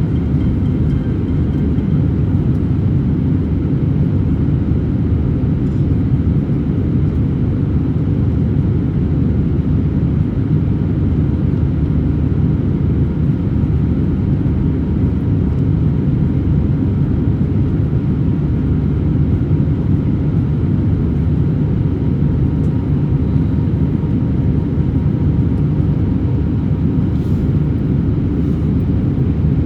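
Steady low rumble of airliner cabin noise inside an Airbus A321-200: the jet engines and airflow, with a faint steady whine on top.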